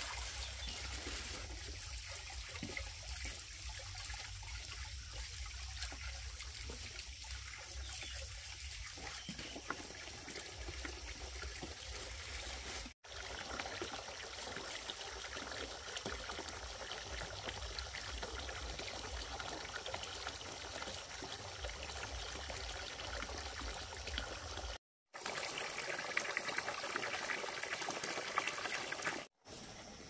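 Water trickling and pouring steadily, with three short silent breaks.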